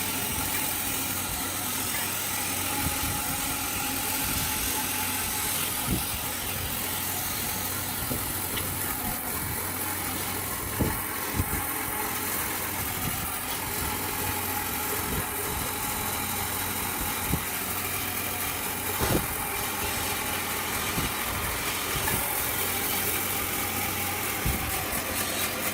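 A steady machine hum runs throughout, with a few sharp knocks scattered through it.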